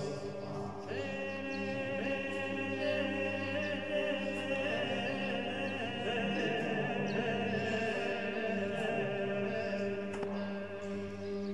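Choir singing slow, long-held chords, with a new chord beginning about a second in.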